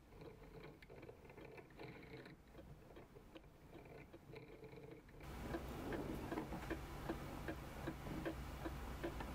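Faint, regular ticking of a clock mechanism, with a low steady hum coming in about five seconds in.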